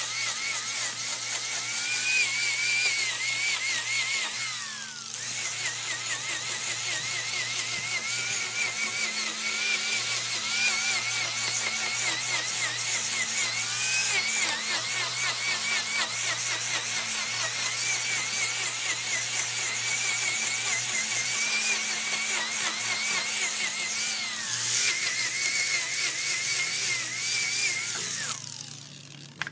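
High-speed electric power tool cutting or grinding wood, its whine wavering in pitch under load. It spins down and starts up again about five seconds in, and spins down again near the end.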